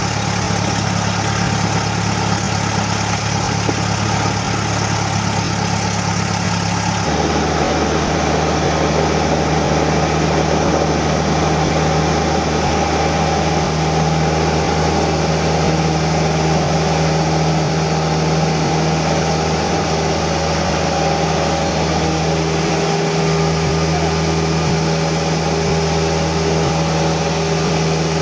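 Cessna 172SP's four-cylinder Lycoming engine and propeller running steadily, heard inside the cockpit. About seven seconds in, the pitch of the drone shifts abruptly and then holds steady.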